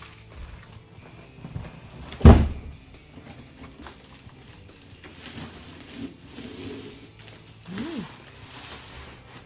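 A single heavy thud about two seconds in, as a part of the unboxed kip bar is dropped or set down on the floor, with quieter handling noises around it. Background music plays underneath.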